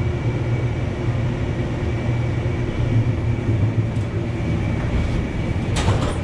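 Light rail train running, heard from inside the car: a steady low rumble with a faint steady whine above it, and a short sharp clatter about six seconds in.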